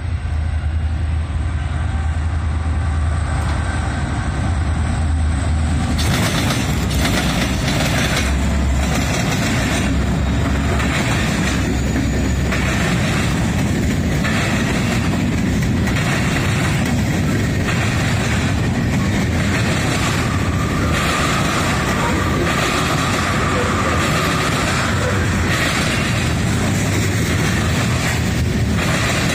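A long freight train passing close by. A low diesel rumble comes first as the locomotives come up. From about six seconds in, the covered hoppers and tank cars roll past with a steady, rhythmic clatter of wheels over the rail joints.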